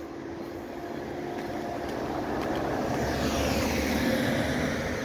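A road vehicle approaching and passing, its engine and tyre noise growing steadily louder to a peak about four seconds in.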